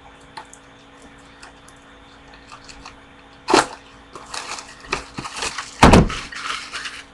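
Paper and card packaging being handled and crinkled, with a sharp crackle about three and a half seconds in, more crinkling, and a loud thump on the table about six seconds in.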